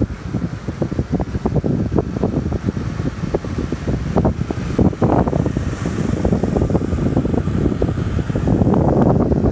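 Wind buffeting the microphone: a loud, gusty rumble with irregular crackles, swelling a little near the end.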